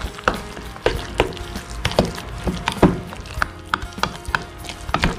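Thick fish, egg and flour mixture being mixed in a stainless steel bowl, with irregular clicks and knocks against the bowl, a few each second.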